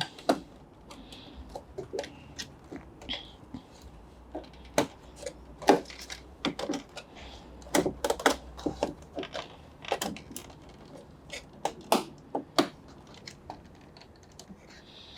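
Irregular sharp clicks and taps of plastic clips and panel parts on a front-loading washing machine being worked loose by hand, a few louder knocks among many lighter ones.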